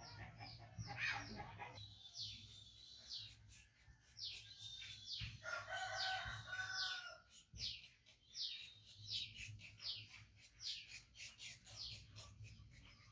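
Rooster crowing once, one long call about five seconds in, over short high falling chirps that repeat about once or twice a second.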